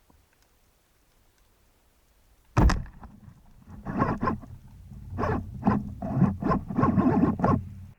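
Underwater, a band-powered spearfishing gun fires with one sharp, loud thunk, followed after about a second by a run of irregular knocks and rattles over a low rumble that cuts off abruptly near the end.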